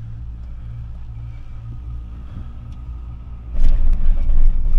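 Doppelmayr detachable eight-seater chairlift chair running along the haul rope with a steady low hum, then a loud rumble and clatter starting about three and a half seconds in as the chair's grip rolls over the sheaves on a lift tower.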